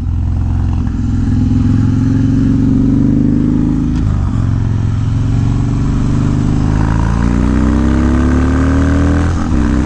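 Harley-Davidson Dyna's Twin Cam V-twin engine pulling under acceleration. The revs climb and then drop at an upshift about four seconds in and again near the end. Wind rush on the microphone.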